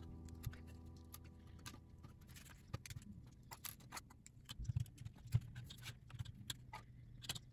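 Plastic LEGO pieces clicking and tapping as they are handled and set down on a table, in scattered small clicks. A couple of duller knocks come about five seconds in. Background music fades out over the first two seconds.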